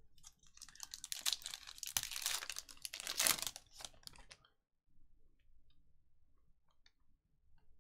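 A trading card pack's wrapper is torn open and crinkled for about four seconds, loudest near the middle. After that come only faint light clicks as the cards are handled.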